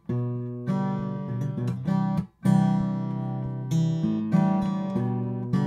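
Acoustic guitar strumming chords, recorded close through a studio microphone and played back, with a brief break between chords about two and a half seconds in.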